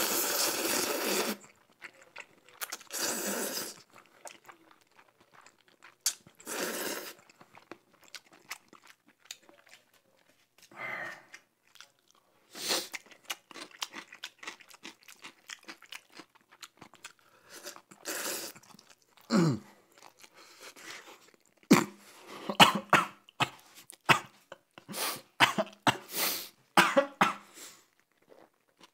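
Close-miked eating of jjajangmyeon noodles: a long noisy slurp at the start and shorter slurps a few seconds later, then wet chewing with many quick smacking clicks, thickest near the end.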